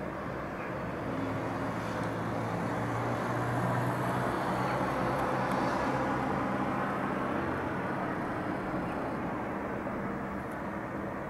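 Steady outdoor traffic hum, with a motor vehicle's engine swelling and fading as it passes, loudest about four to six seconds in.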